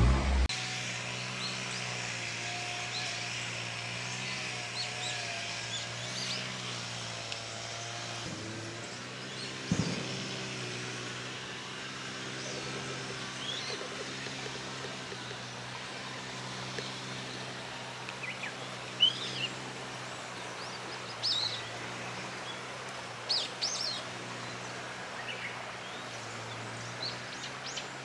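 Small birds chirping and calling in short scattered notes over a steady low hum, with the loudest chirps bunched about two-thirds of the way through.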